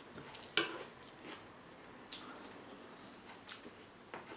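Metal fork prodding and scraping through a stuffed bell pepper on a plastic-wrapped wooden board. A few short sharp clicks, the loudest about half a second in and two more near the middle and end, over faint room noise.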